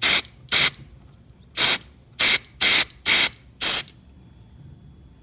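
Aerosol can of CRC electronic cleaner sprayed in seven short, even bursts onto a mass airflow sensor to clean it. The sprays stop a little before four seconds in.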